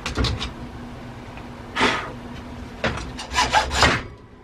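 White plastic dryer vent hood and its collar ring being handled on a wooden board over a metal rack: a few light clicks, a clatter a little under two seconds in, then a cluster of knocks and scrapes near the end.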